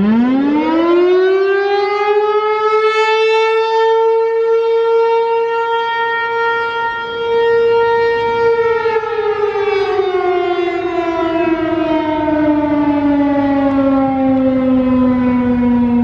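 American Signal T-135 mechanical rotating siren sounding a short alert blast. It winds up quickly to a steady tone and holds it for several seconds while the horn turns. After about eight and a half seconds it winds down slowly, the pitch gliding steadily lower as the rotor coasts.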